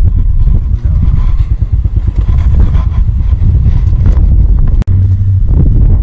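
Strong wind buffeting the microphone in a storm: a loud, ragged low rumble that briefly cuts out just before the end.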